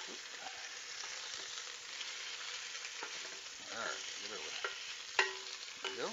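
Thick top round steaks searing in hot oil in a multi-cooker's nonstick pan at about 425°F: a steady sizzle as the seared crust forms. A few sharp clicks of tongs against the pan as the steaks are flipped, the loudest about five seconds in with a brief ring.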